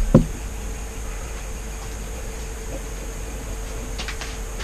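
Steady background hum and hiss, with a short low thump just after the start and a few faint clicks about four seconds in.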